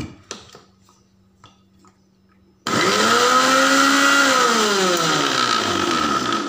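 Electric mixer grinder's motor starts suddenly about two and a half seconds in and runs loud, beating egg, vinegar and oil into mayonnaise. Its pitch rises briefly, then sinks steadily over the last two seconds.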